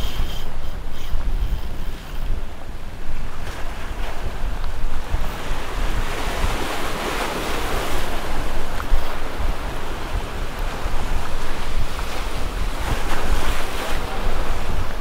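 Surf washing against the jetty rocks, with wind buffeting the microphone; the waves swell loudest about six to nine seconds in and again near the end.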